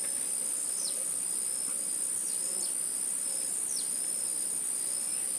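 Steady high-pitched insect drone, with a few short falling bird chirps scattered over it.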